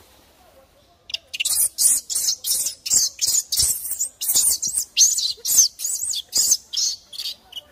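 Infant macaque shrieking in distress as its mother grabs and knocks it down: a rapid run of short, very high-pitched shrieks, about two a second, starting about a second in.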